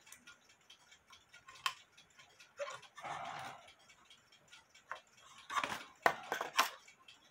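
Clicks, a brief scrape and a cluster of knocks from handling a wooden cuckoo clock case and its bellows, with a spring being unhooked, the loudest clatter a little after five seconds in. A clock ticks steadily and faintly throughout.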